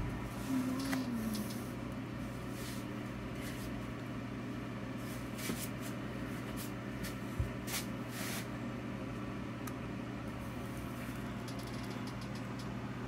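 Steady low electrical hum, with a few faint clicks and one soft low thump about seven seconds in.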